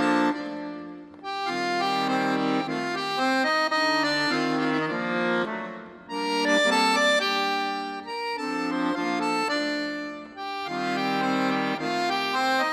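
Background music: an instrumental tune played in phrases, dipping briefly between phrases about a second in, near the middle and about ten seconds in.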